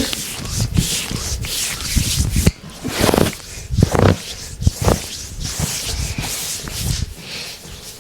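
Hands rubbing and kneading over skin in a deep tissue massage: irregular swishing strokes, with a few heavier strokes between about three and five seconds in.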